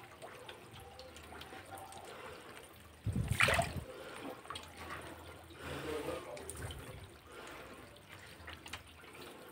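Faint trickling and dripping of water in a plastic bucket of catfish fry, with small ticks and splashes. A brief louder knock and rustle comes about three seconds in.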